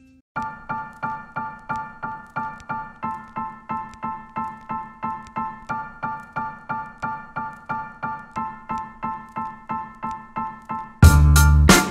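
Background music: a piano repeating a chord about four times a second, the chord changing every few seconds. Near the end, much louder music with a heavy beat comes in.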